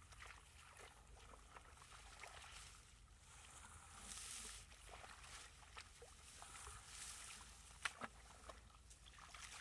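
Faint splashing and squelching of hands groping through shallow muddy water and mud for fish, with small irregular ticks and rustling. A sharper knock comes about eight seconds in.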